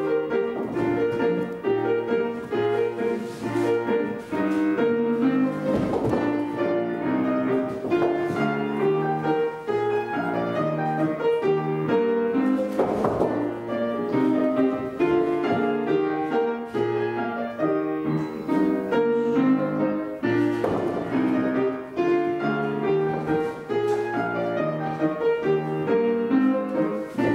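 Piano playing classical-style accompaniment for ballet exercises, in steady, even phrases.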